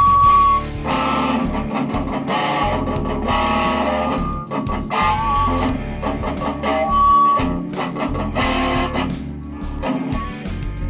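Electric guitar, a Knight Telecaster, played through an amplifier: strummed chords and sustained single notes, with a wavering bent note about five seconds in.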